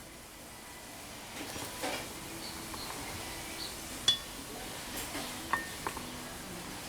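Steel tools and workpiece being handled between forging blows: light scraping and a few metal clinks, the sharpest about four seconds in.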